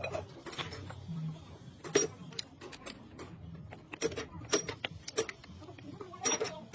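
Steel gear parts and hand tools clinking and knocking against a planetary gear housing, about half a dozen separate sharp metallic clinks.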